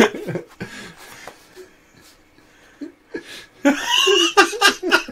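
Men laughing: short bursts of chuckling at first, a quieter lull, then a loud burst of high-pitched laughter about three and a half seconds in.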